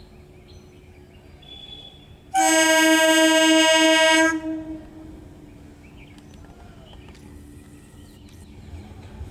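Horn of an electric multiple unit (EMU) local train sounding one steady blast of about two seconds, about two seconds in. The low rumble of the approaching train grows near the end.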